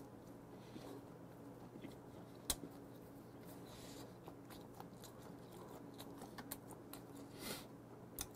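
Faint chewing of a mouthful of food, picked up close on a lapel microphone, with small scattered mouth ticks and one sharp click about two and a half seconds in, over a steady low room hum.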